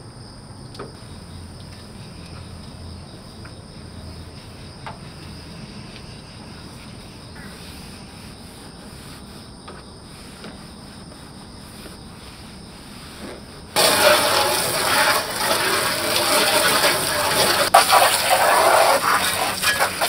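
A garden hose spray gun jetting water against an air conditioner's outdoor unit: a loud, steady hiss that starts suddenly about two-thirds of the way through. Before it there is only quiet background with a few faint taps.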